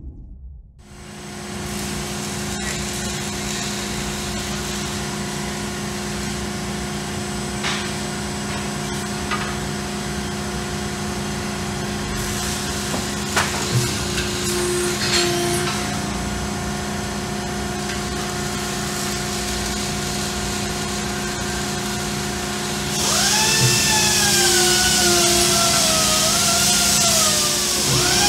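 Ermak CNC AP 110-ton hydraulic press brake running with a steady machine hum, with a few sharp metal knocks as sheet stock is handled at the machine. About 23 s in, a louder hiss joins, with a wavering, falling whine.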